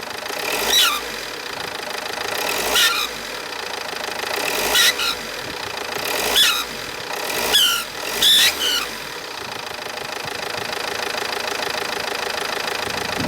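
Opel Zafira B's Z19DTH 1.9 CDTI diesel engine running, with six short wavering whistles in the first nine seconds, each on a brief swell in engine sound, then steady running. The whistle comes from the front of the engine, along with escaping gases.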